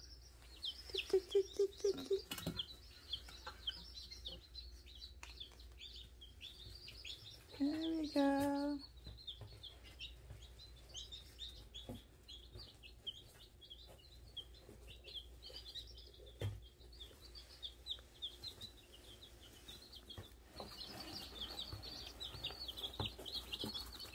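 Week-old chicks peeping continuously, a stream of rapid, short, high-pitched cheeps from several birds. A person's voice makes two brief sounds, about a second in and louder around eight seconds in.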